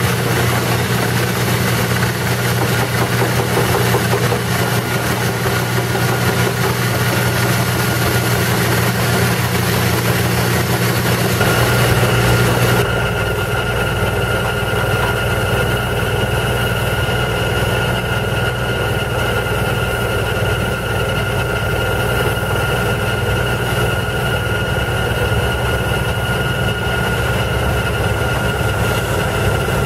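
Airmobil 432 pneumatic drilling rigs running on compressed air: a steady mechanical drone with a hiss of air. About 13 seconds in the sound changes, and a steady high whine runs over the drone.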